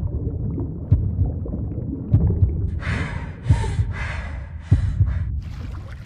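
Heartbeat sound effect, a low thump about every second and a bit. Gasping, panting breaths come over it through the middle.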